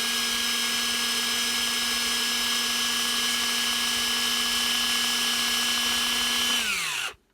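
Small electric drill running at one steady speed with a high whine, then winding down and stopping about seven seconds in, used to drill out the rivets holding a diecast toy car together.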